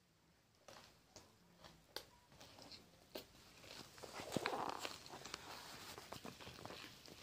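Faint crunchy clicks of puffed rice being chewed. About four seconds in, louder rustling and sharp clicks take over as puffed rice is handled in a steel bowl.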